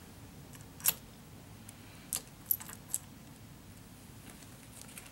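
Small metallic clicks and clinks from steel scope ring caps being set onto the rings by hand: four short clicks over about two seconds, the first the loudest.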